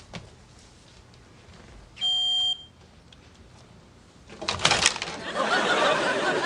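Smoke detector giving a single short high-pitched beep about two seconds in. About four seconds in come a few sharp knocks, then a studio audience laughing loudly.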